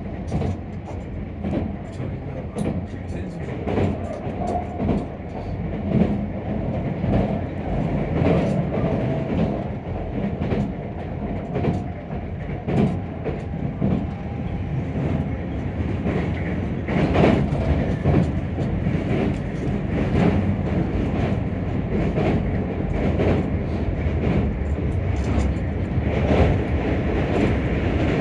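Keisei Skyliner electric train running at speed, heard from inside the passenger car: a steady rumble of wheels on rail with frequent, irregular clicks and knocks from the track.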